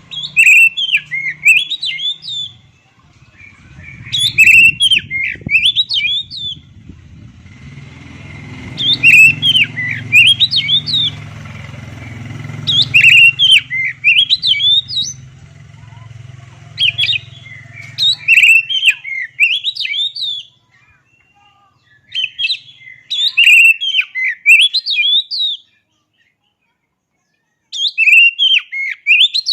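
Oriental magpie-robin (kacer) singing: seven loud phrases of rapid whistled, warbling notes, each lasting one to three seconds, with pauses between them. A low rumble lies under the first two-thirds and then stops.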